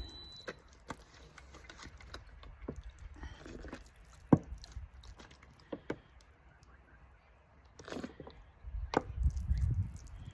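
Scattered light taps and clicks with soft rustling from hands working seed pots and potting soil. A low rumble comes in near the end.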